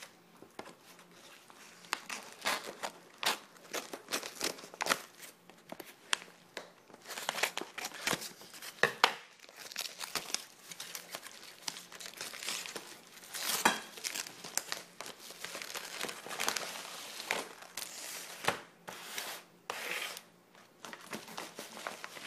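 A Priority Mail envelope being torn open and crinkled by hand: irregular crackling rips and rustles of the envelope material.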